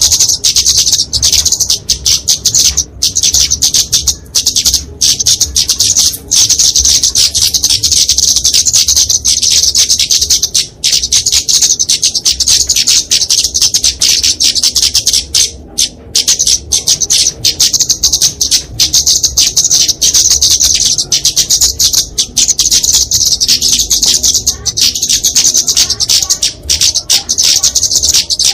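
Flowerpecker (kemade) in agitated 'fighting' song: a dense, rapid stream of high, sharp chips and trills, nearly unbroken with only brief pauses.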